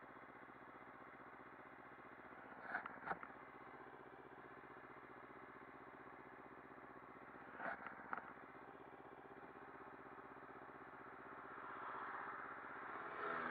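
Kawasaki Ninja 300's parallel-twin engine idling steadily and quietly. A pair of short clicks sounds about three seconds in and again around eight seconds, and a rushing hiss swells over the last couple of seconds.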